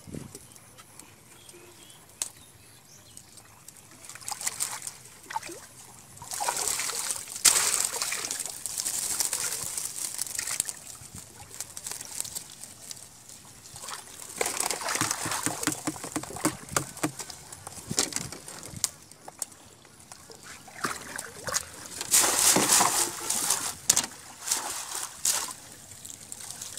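Water streaming, splashing and sloshing off a bamboo box-cage fish trap as it is lifted and tipped over the boat, coming in several bursts a few seconds long, with water and small fish dropping into a plastic crate.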